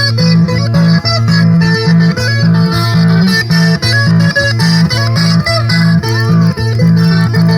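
Instrumental break in a Cajamarca carnival song: plucked guitars play over a bass line that moves between notes in a steady, even rhythm.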